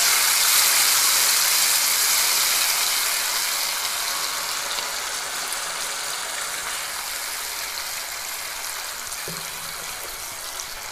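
Onion paste sizzling in hot oil with whole spices in a nonstick pan. The sizzle is loudest as the paste goes in and slowly dies down as it settles into the oil.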